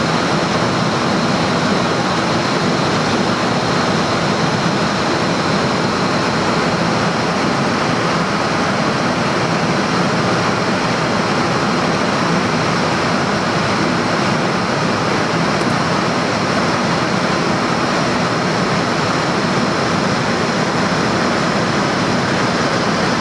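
Steady rushing noise inside a Boeing 747-400 cockpit in flight: airflow around the nose and the cockpit air conditioning, with a faint high steady whine.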